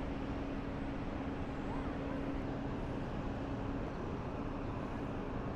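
Steady outdoor background noise with a constant low hum that stops a little before four seconds in.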